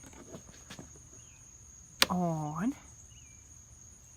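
Crickets trilling steadily in the background, with a few light clicks and one sharp click about two seconds in, just before a spoken "On."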